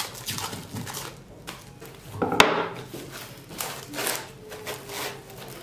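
Cling film being pulled off its roll and spread over a wooden cutting board: a run of short crackling, rustling pulls, with one sharp knock about two and a half seconds in.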